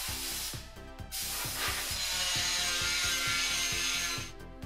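A handheld power tool polishing bare steel car bodywork runs briefly, then again from about a second in until near the end, where it cuts off. Background music with a steady beat plays throughout.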